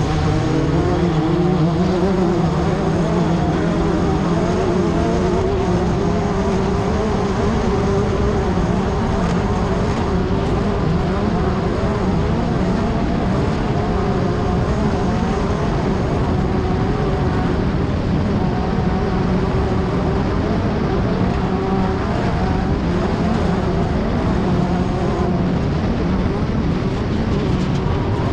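Class 10 off-road race car's engine running hard for the whole stretch, its pitch wavering up and down with the throttle, over a constant rush of noise.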